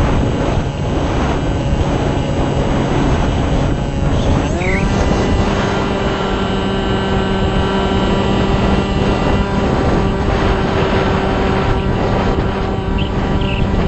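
Multiplex Shark RC plane's motor and propeller running, heard from an onboard camera over heavy wind rush and buffeting. About four and a half seconds in, the motor pitch rises quickly and then holds steady at the higher speed.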